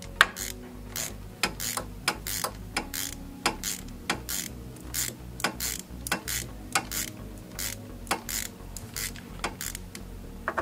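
Hand ratchet clicking in short irregular runs, a few clicks a second, as the Torx bolt of the timing-belt tensioner pulley is unscrewed.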